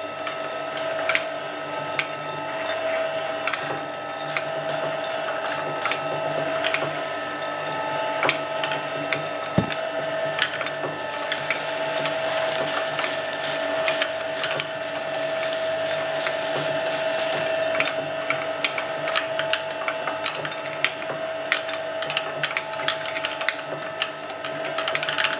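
Twin-shaft shredder running, its motor drone and a steady whine under a constant crackle and clicking as the rotating hooked cutters tear through soft tissue paper. The tearing grows denser and hissier for several seconds in the middle.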